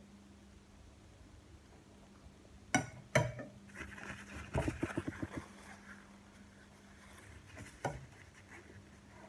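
Things handled on a dining table while eating: two sharp knocks about three seconds in, a second of quick rattling and rustling, and another knock near the end.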